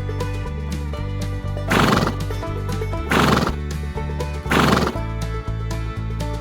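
A horse neighing in three short loud bursts, about a second and a half apart, over background banjo music.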